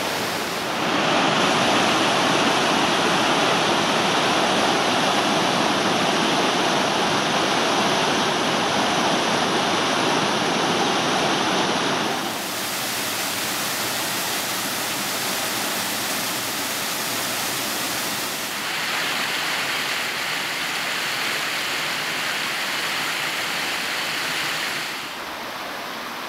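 Rushing water of a small waterfall on a woodland brook: a steady rush that jumps louder about a second in, drops back about twelve seconds in, swells again a little later and settles quieter near the end.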